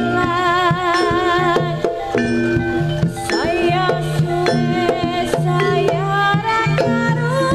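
Live jaranan ensemble music: steady drumming and sharp struck accents under a held, wavering melody line, with a sliding rise about three seconds in.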